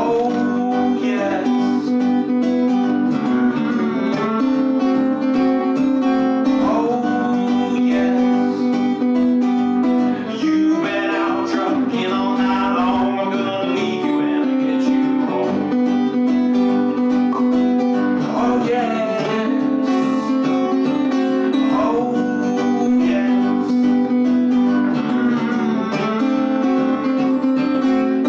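Acoustic guitar playing a blues instrumental break, picked over a steady bass note, with notes sliding up in pitch again and again.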